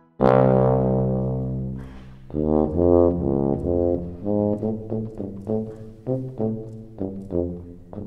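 Symphony orchestra playing, with low brass prominent: a loud full chord is struck and left to fade, then about two seconds in a run of short, detached notes follows at roughly three a second.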